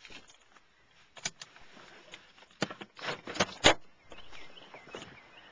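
Clicks and knocks of a car door being unlatched and pushed open as someone climbs out. The sharpest knock comes a little past halfway, followed by softer rustling.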